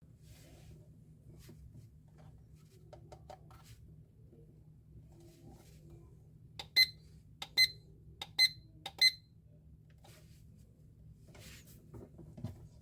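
IKEA PLUGGET digital alarm clock beeping four times: short, high-pitched beeps less than a second apart, after a few faint clicks. A short thump comes at the very end.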